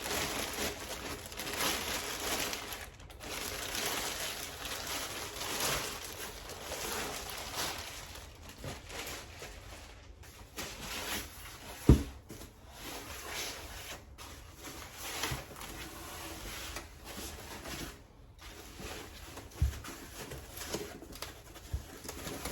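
Packaging rustling and crinkling as a new motorcycle windshield is unwrapped by hand, with one sharp knock about halfway through and a lighter knock later.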